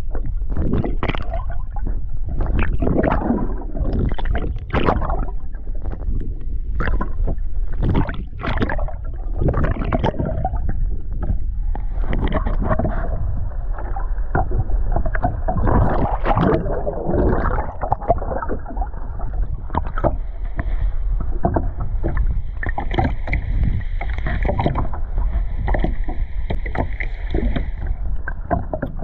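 Water sloshing and gurgling around a camera held just under the sea surface, muffled, with a constant low rumble and many irregular knocks and bumps. A faint steady high tone joins in for the last few seconds.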